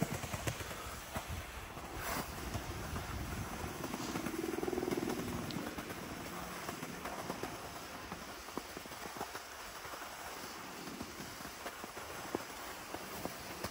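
A snowboard sliding over soft, tracked snow while being pulled uphill on a rope tow, with scattered small clicks and crackles. A brief low hum rises about four seconds in and fades by about six seconds.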